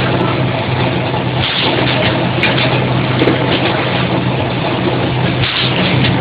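Automatic case making machine running: a steady mechanical hum under a dense noise of its motors and conveyor belts, with a few brief louder noises along the way.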